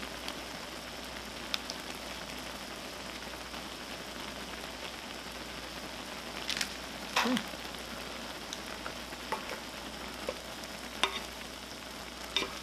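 Ramyun broth coming to the boil in a metal pot on a tabletop burner: a steady bubbling hiss. A few short crinkles and clicks break in about seven seconds in and again near the end, as the cheese packet is handled and chopsticks go into the pot.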